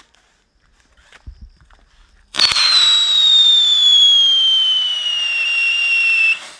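Whistling firecracker going off: a sudden loud hiss carrying a whistle that falls slowly in pitch, lasting about four seconds and cutting off abruptly.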